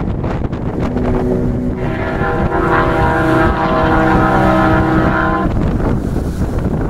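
Heavy wind buffeting the microphone, with a steady pitched hum of several tones coming in about two seconds in and fading out near the end.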